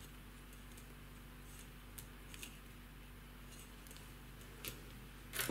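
Knitting needles clicking faintly now and then as stitches are purled, with a few separate clicks and a louder click near the end.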